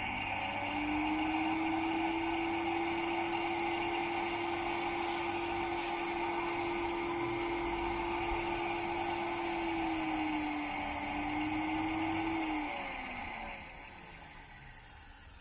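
Vacuum motor of a Sprint 50 pedicure machine spins up and runs with a steady whine and airflow hiss. Its pitch dips briefly about ten seconds in, then it is switched off and winds down near the end. This motor is the source of the machine's reported extraneous running noise.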